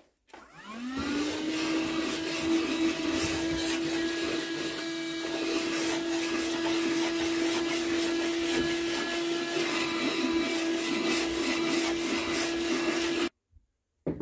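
Handheld vacuum cleaner switched on: its motor spins up with a quickly rising whine and settles into a steady, high hum with a strong rushing hiss. It stops suddenly about a second before the end.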